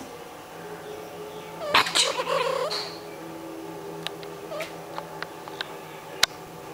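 Female cat in heat giving one yowling call about two seconds in, lasting about a second; a few faint clicks follow and a sharp tick comes near the end.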